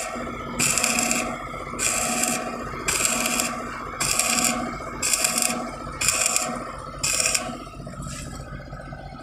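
Hand tool scraping across metal in regular strokes, about one a second, over a steady low hum.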